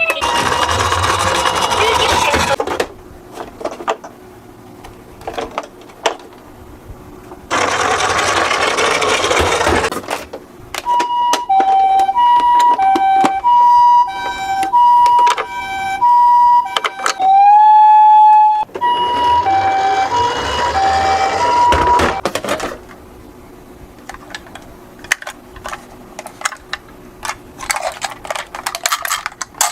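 Toy ambulance's electronic two-tone siren alternating between a high and a low note for several seconds, then holding one tone that bends slightly up. Three stretches of loud rushing noise, each a couple of seconds long, come before and after it, with scattered clicks in between.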